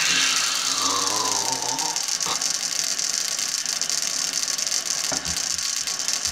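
Toothpaste tube and toothbrush being handled over a steady hiss, with two sharp clicks about two and five seconds in, such as the tube's cap snapping. A brief falling tone, like a voice, comes in the first two seconds.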